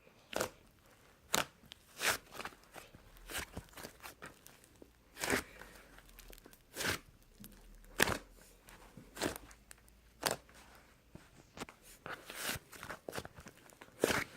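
Fluffy slime being squeezed and pressed by hand. It gives sharp pops and crinkly crackles at irregular intervals, about one a second.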